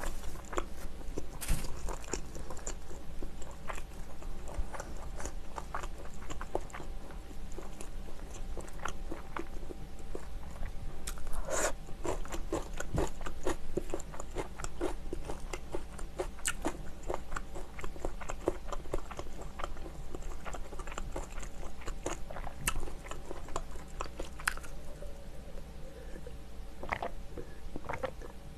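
Close-miked chewing of a mouthful of fried chicken, with many small crunches and sharp mouth clicks.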